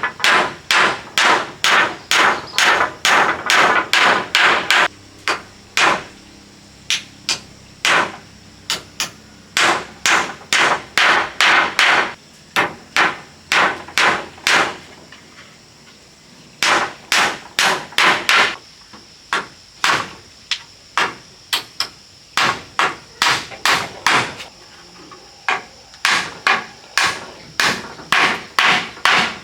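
Hammering: sharp, ringing hammer blows in runs of about two to three a second, with short pauses between runs.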